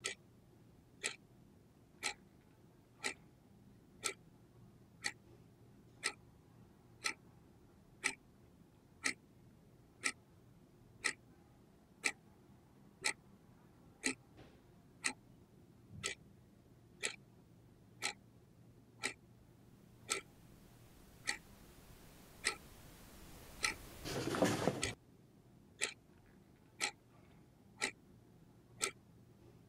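A clock ticking steadily, about one tick a second. A rush of noise swells up about two-thirds of the way through and cuts off suddenly.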